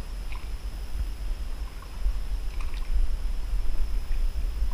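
Kayak paddle strokes in calm river water, with a few small splashes and drips from the paddle blades over a steady low rumble.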